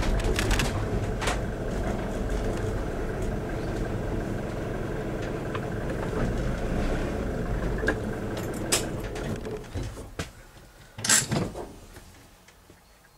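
Car engine and tyre rumble heard from inside the cabin as the car creeps forward and slows to a stop. The rumble fades over the last few seconds, with a few sharp clicks and one short, louder rasping burst near the end.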